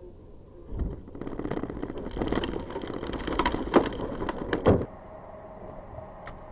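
A flatbed truck's load of blocks spilling onto the highway, with debris and grit pelting the dashcam car's windshield and body: a thud about a second in, then a dense clatter with several hard bangs, the loudest near the end. It cuts off suddenly to steady road noise inside the car.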